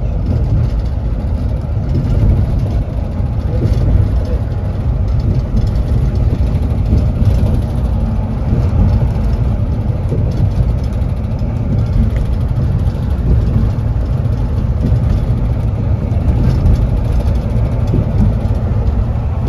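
Scania coach running, a steady low rumble of engine and road noise.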